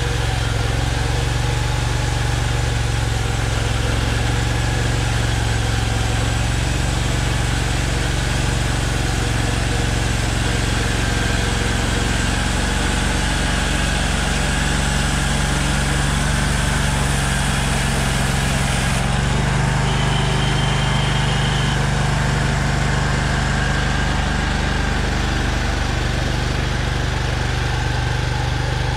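Small gas engine of a portable bandsaw sawmill running steadily at an even pitch.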